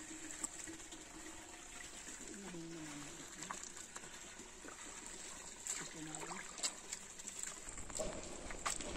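Faint sloshing and squelching as a bare hand mixes cow dung into water in a biogas plant's inlet tank, working it into a thin slurry for the digester.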